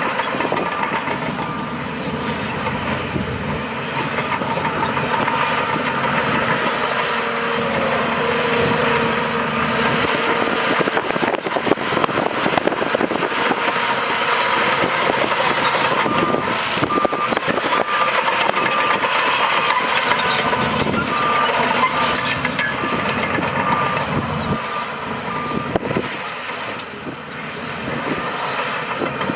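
Heavy earthmoving machinery, a bulldozer and dump truck, running under load with clanks and rattles. A reversing alarm beeps steadily near the start and again through much of the second half.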